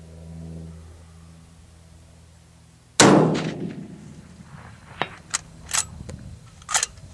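A single shot from a .308 Winchester Remington 700 bolt-action rifle about three seconds in, its report trailing off over about a second, followed by four or five sharp metallic clicks and clinks.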